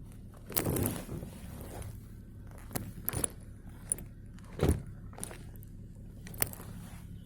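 Scattered knocks, ticks and rustling handling noises, the loudest a single thump about halfway through, over a low steady hum.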